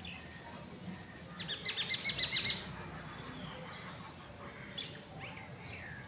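A bird chirping: a quick run of short, high chirps lasting about a second near the middle, with fainter bird chirps around it.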